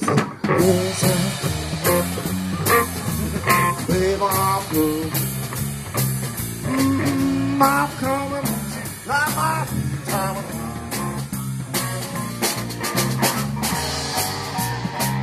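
Live band playing: electric guitar, electric bass guitar and drum kit through amplifiers, with bending guitar lines over a steady bass line and drum beat.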